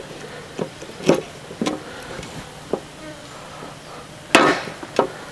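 A heavy knife chopping through chicken leg joints onto a wooden block: about half a dozen sharp chops, the loudest about four and a half seconds in.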